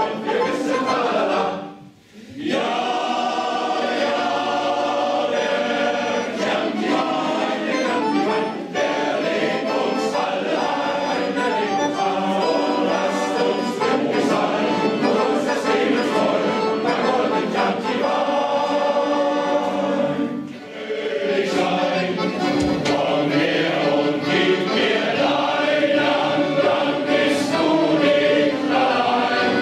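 Men's sailors' choir singing in harmony, with accordion accompaniment. The music breaks off briefly about two seconds in and again about twenty seconds in.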